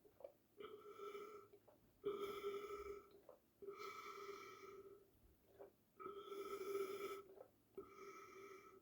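A person gulping water in rapid back-to-back swallows to stop hiccups. Soft swallowing clicks alternate with about five faint, steady hum-like breath sounds, each about a second long.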